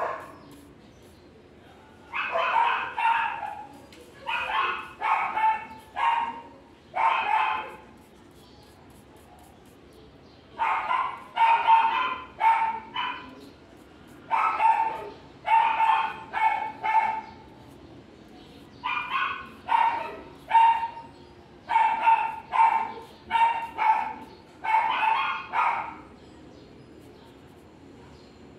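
A dog barking over and over in quick runs of two to four barks, with short pauses between the runs.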